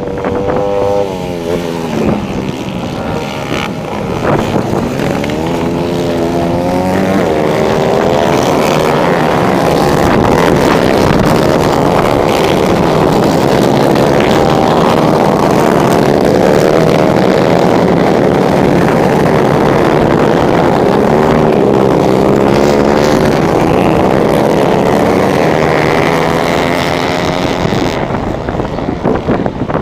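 Several 125 cc four-stroke racing motorcycle engines revving hard on a dirt track, their pitches rising and falling as they shift through the gears. The sound builds over the first few seconds, stays loud through the middle and fades near the end as the bikes pass.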